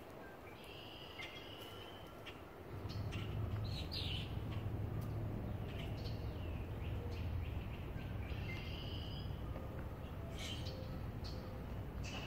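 Songbirds chirping and trilling on and off in woodland. About three seconds in a low steady rumble sets in under the birdsong and stays, the loudest sound from then on.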